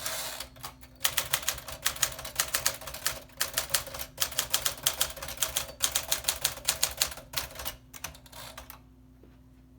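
Typing on a 1956 Smith Corona Clipper 5C manual portable typewriter: fast runs of sharp key strikes with brief pauses between bursts, stopping about a second before the end.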